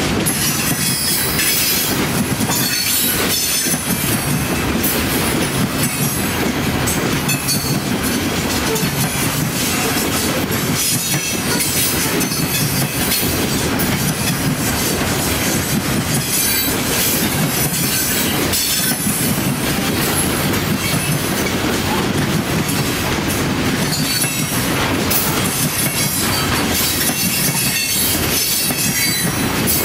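A train's cars rolling past at speed: steel wheels clattering over the rail joints in a steady rush, with short high-pitched wheel squeals now and then.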